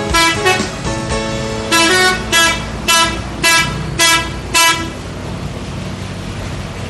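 Bus 'telolet' horn, a multi-note musical air horn, tooting a quick run of short blasts at changing pitches, about two a second, that stops about five seconds in. A bus engine and traffic run underneath.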